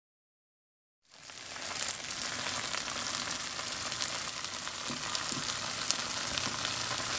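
Shredded cheese frying in a dry non-stick skillet on medium heat: a steady sizzle with small crackles as the cheese melts and browns at the edges. It cuts in suddenly about a second in.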